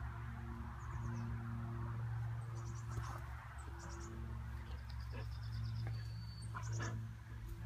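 Outdoor garden ambience: several brief bursts of high-pitched chirping and rapid trills, over a steady low hum.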